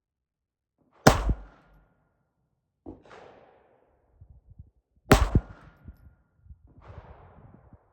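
Two shots from a Ruger Mark IV Hunter .22 pistol fitted with a Tandem Cross Halo suppressor, about four seconds apart, firing supersonic ammo that the pistol is cycling properly. A fainter knock follows each shot by a couple of seconds.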